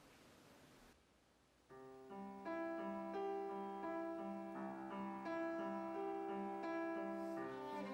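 Background score music, a piano-led piece, comes in about two seconds in after a second of faint room hiss, with sustained notes.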